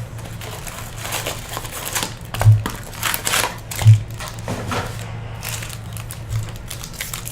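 Cardboard and foil card packaging crinkling and rustling as a box of trading cards is opened and handled, with a couple of short knocks about two and a half and four seconds in.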